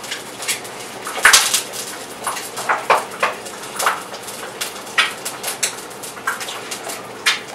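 Two female cats in heat tussling on a carpet, one mounting the other: a string of short scuffling and rustling noises, two or three a second, with no long calls.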